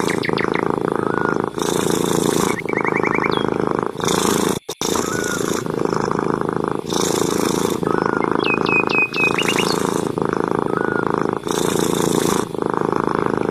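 Domestic cat purring loudly and steadily, the purr pulsing in cycles about a second or so long with each breath. Birds chirp briefly now and then behind it.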